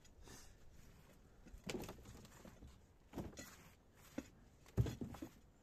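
Gloved hands scraping and scooping loose soil and rotten wood debris on a patio: a few scuffs and scrapes, with a sharper thump near the end. A bird cooing in the background.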